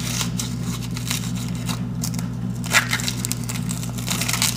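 Paring knife trimming the outer layers off an onion: scattered, irregular crunches and crackles of blade and skin, over a steady low hum.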